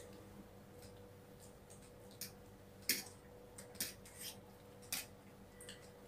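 Quiet eating at close range: scattered soft clicks and smacks of chewing and of a fork and chopsticks touching a plate, over a faint steady hum.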